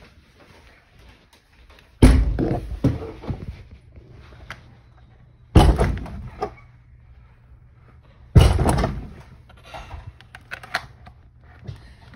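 Three loud thumps, each dying away within about a second, spaced roughly three seconds apart.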